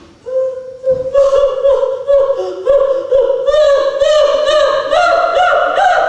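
A person singing a tune in a high voice with no accompaniment. The tune grows louder about a second in and climbs in pitch toward the end.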